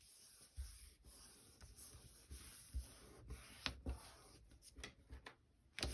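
Faint rubbing and scratching of paper worked by hand, with a few light taps, as glue is dabbed along a paper edge and pressed down.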